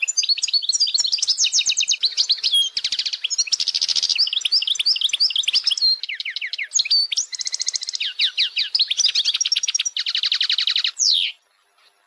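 A songbird singing a fast, unbroken run of twittering chirps, trills and buzzy rattles, ending in a quick falling note about eleven seconds in and then stopping abruptly.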